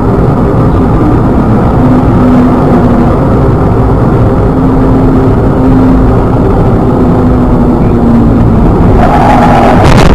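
Car on the move: steady, loud engine and road noise with a faint hum that comes and goes.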